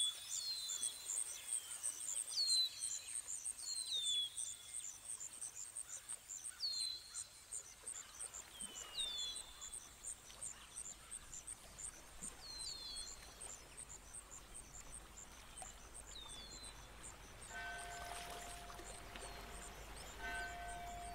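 Birds chirping: repeated short, high, downward-sweeping calls over a fast, even, high-pitched trill, thinning out after about fifteen seconds. Near the end a steady tone comes in, breaks off briefly and resumes.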